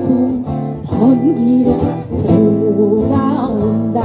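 A song sung to acoustic guitar accompaniment, the voice sliding between held notes over steady strummed chords.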